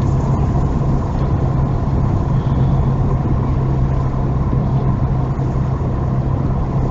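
Car driving at a steady speed, heard from inside the cabin: a steady engine hum with road and tyre rumble.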